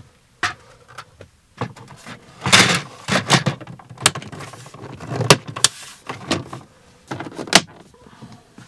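Hyundai Terracan's plastic instrument-cluster surround being pushed back onto the dashboard: a string of sharp, irregular plastic clicks and knocks, with a rubbing scrape a few seconds in as it is worked and snapped into place.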